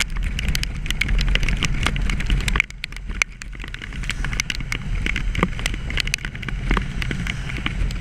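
Yamaha Royal Star V4 cruiser motorcycle running at road speed, a low engine and road rumble under wind rush on the microphone. Many sharp ticks throughout are raindrops striking the camera.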